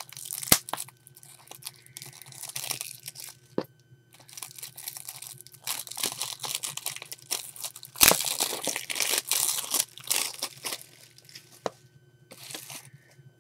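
Plastic shrink-wrap being torn and crinkled off a Blu-ray case, in irregular spells of crackling. There is a sharp crack about half a second in and a louder one about eight seconds in.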